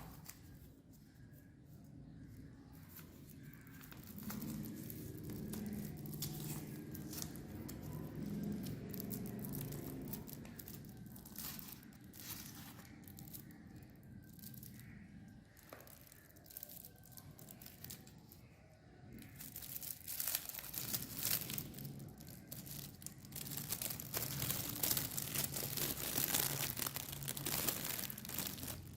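Packaging crinkling and tearing by hand, in irregular crackles and clicks that grow louder and denser in the second half.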